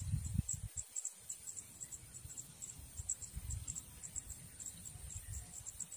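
Insects chirping in short, high-pitched pulses, several a second, over a low, uneven rumble.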